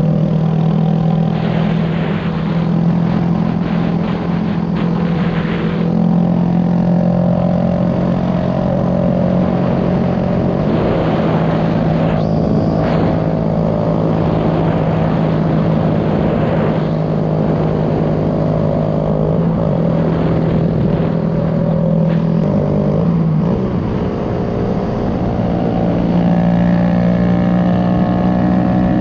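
Small-displacement pit bike engine running at steady revs while being ridden, with wind rush. The engine note drops for a moment about three-quarters of the way through, then picks back up.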